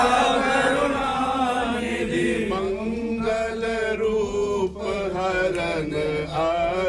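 Hindu devotional chanting: voices intoning a hymn on long held notes, moving into quicker syllables after a couple of seconds.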